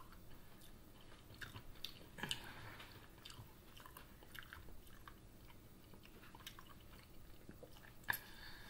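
Faint chewing and small wet mouth clicks of a person eating an air-fried chicken wing, with a sharper bite about eight seconds in.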